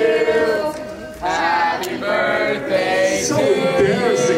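Several voices singing together, with a brief lull about a second in.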